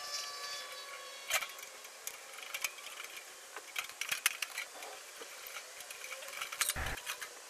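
Scattered light metallic clicks and clinks of hand tools, pliers and a screwdriver, working on a toaster oven's sheet-metal casing and heating-element panel, with a dull thump near the end.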